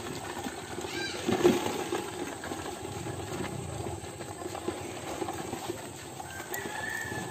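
Crabs clattering against a plastic bucket as they are dropped in and handled: scattered clicks and knocks, the loudest about a second and a half in.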